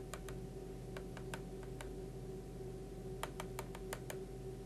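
Stylus tip tapping on a tablet screen while drawing short dashes, giving irregular sharp clicks: a few spaced ones at first, then a quick run of about six clicks a little after three seconds in. A steady faint electrical hum sits underneath.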